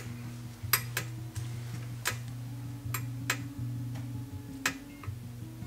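Sharp, irregular ticks from a frying pan of water heating on an electric hot plate, about six in a few seconds, over a low steady drone.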